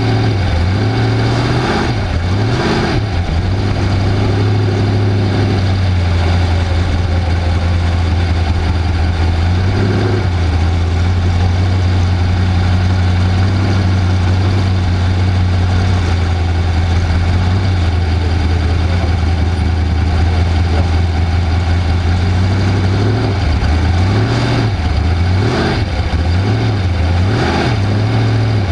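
Off-road race car engine running loud and steady. Its pitch holds mostly level, with a few drops and recoveries as the revs change, and several quick dips near the end.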